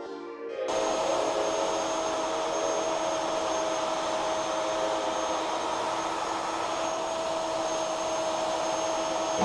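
Klokow plunge router running steadily with its dust extractor drawing through the hose: a constant high whine over a rushing air noise, starting abruptly about a second in.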